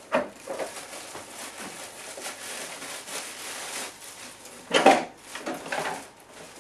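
Rummaging through packaging inside a cardboard box: steady rustling, a knock at the start and a louder clatter about five seconds in as a juicer part is lifted out.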